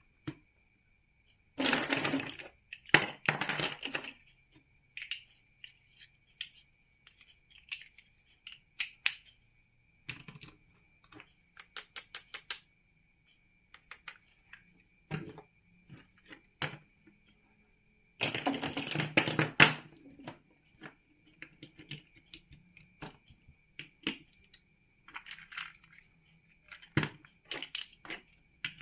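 Plastic toy building bricks being handled and snapped together: scattered sharp clicks and taps, with two spells of dense rattling, about two seconds in and again around eighteen seconds in.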